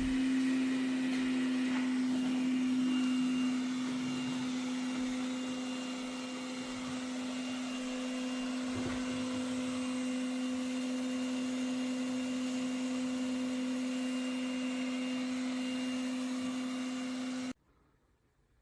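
Robot vacuum suction motor running steadily, a constant hum with airy hiss and a faint high whine, then stopping abruptly about a second before the end.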